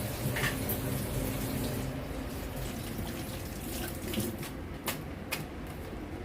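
Water running from a kitchen tap into a sink as vegetables are washed, with a couple of sharp clicks near the end.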